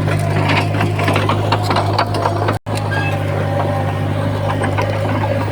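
Komatsu D31P bulldozer's diesel engine running steadily, with a constant low hum and frequent clicks and rattles on top. The sound drops out for a split second about halfway through.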